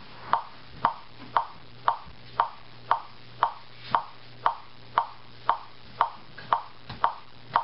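Steady, even ticking from a cell phone, about two sharp ticks a second, like a clock.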